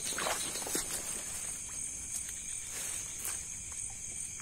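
Steady high chirring of night insects, with scattered soft rustles and clicks under it.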